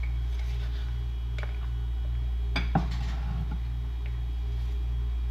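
A few sharp clinks, the loudest about three seconds in, as a spoon scoops sweet potato starch from a jar, over a steady low hum.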